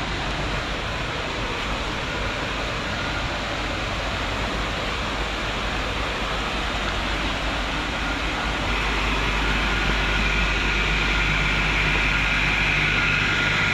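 Steady rush of wind and road noise on a motorcycle ride, with a low engine hum that grows a little louder about nine seconds in, along with a faint high whine.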